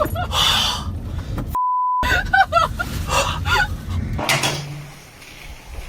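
People shouting in alarm in high, strained voices. A steady censor bleep, one pure tone, cuts over a word about a second and a half in. A short burst of noise comes near the end, and then it goes quieter.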